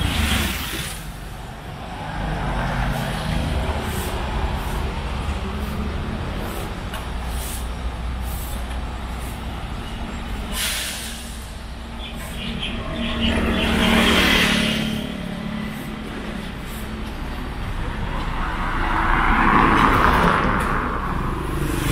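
Street traffic: a steady low engine rumble, with vehicles passing that swell up and fade away twice, once about two-thirds of the way in and again near the end.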